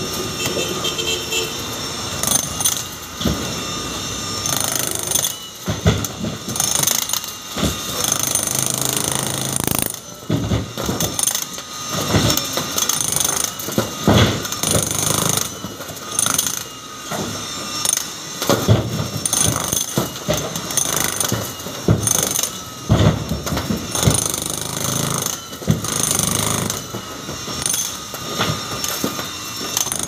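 Corded electric demolition hammer (jackhammer) chiselling into a concrete wall. It runs in stretches of a few seconds, each a dense rattle, with short pauses between them.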